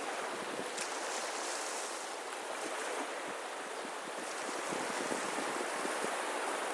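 Sea surf washing steadily onto a beach, a continuous hiss of breaking and receding water with small crackles.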